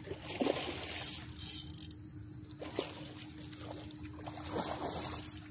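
Water splashing and sloshing in two bouts as a hooked catfish thrashes at the surface while being played to the bank, over a steady chorus of crickets.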